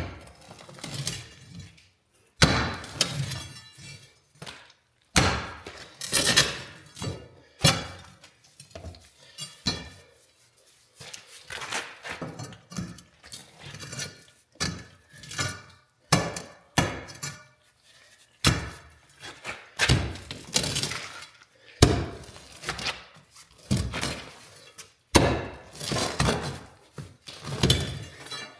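Saw-cut concrete slab being broken out with repeated heavy blows, each strike cracking and clattering the concrete chunks, at an irregular pace of roughly one blow every second or two.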